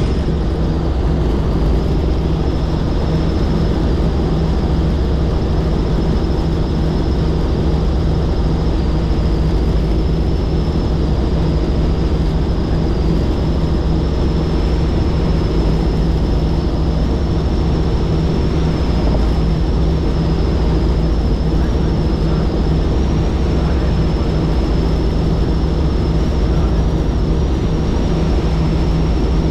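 Helicopter in flight: steady, loud rotor and engine noise with a thin high whine held throughout.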